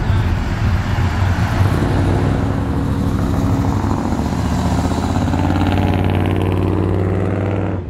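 Classic cars driving close past with loud exhaust, the low engine note running steady and rising slightly as a second car follows.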